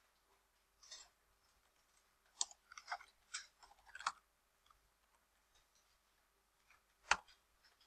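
Faint computer keyboard keystrokes, a short run of taps over a couple of seconds, then one louder single tap near the end.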